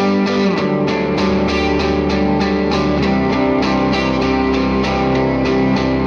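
Background music: an instrumental track with guitar and a steady beat.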